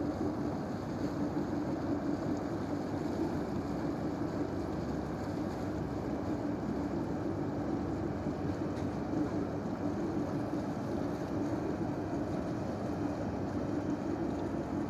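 Passenger ship's engines droning steadily as the ship sails away, a constant low hum over an even rumble.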